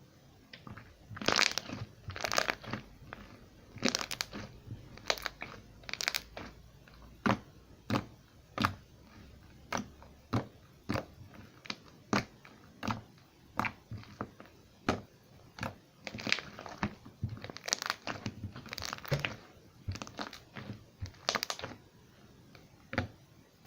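Homemade slime being squeezed and pressed by hand, giving irregular short squelching pops and crackles, about one or two a second with some quick runs.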